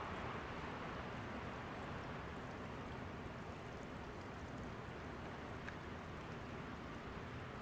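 Steady rushing noise of moving water, with one faint tick about three quarters of the way through.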